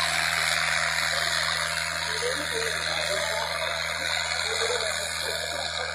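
HMT tractor's diesel engine running hard under heavy load as it drags a harrow, heard as a steady low drone under a loud, even rushing noise.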